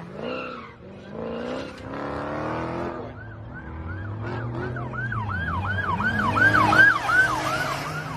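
Police car siren in its fast yelp pattern, about three sweeps a second. It starts about three seconds in and grows louder as the police SUV comes close, with the vehicle's engine running underneath.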